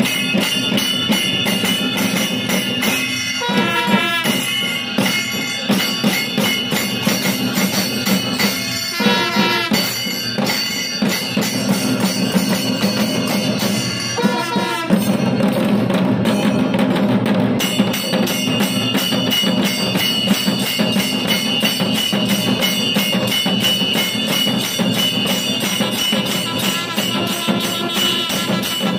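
Kailaya vathiyam temple ensemble playing: large barrel drums beaten with sticks in a fast, steady rhythm with clashing cymbals, while long brass horns sound rising and falling calls a few times in the first half.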